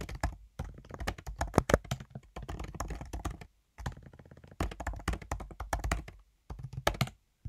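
Typing on a computer keyboard: quick, irregular key clicks in runs broken by short pauses.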